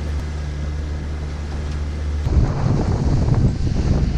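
Outboard motor on a small aluminium boat running at low speed with a steady low hum; about two seconds in, the boat is under way at speed, the engine hum joined by rough, gusting wind noise on the microphone and rushing water.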